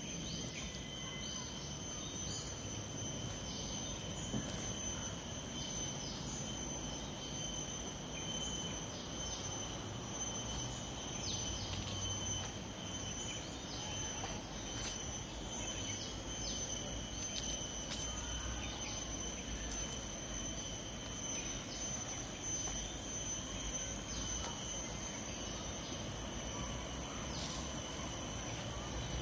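Steady high-pitched drone of insects, with faint short chirps over it. Underneath runs a low rumble that swells and fades about once a second, from footsteps and handling of the walking camera.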